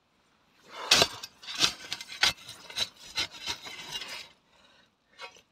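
A shovel scraping and crunching into loose ash and stones in a dig hole: a run of gritty scrapes starting about a second in and dying away after about four seconds.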